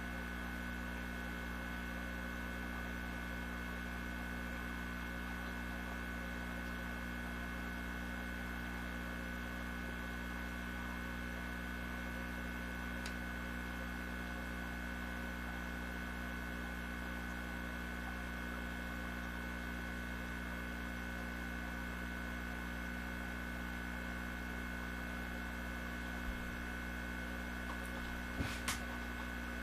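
Steady electrical hum with a thin high whine over it, from running aquarium equipment. A few faint clicks come near the end.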